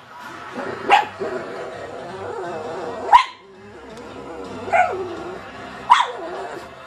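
Pug barking four times, short sharp barks spaced a second or two apart, over the sound of a television programme with music.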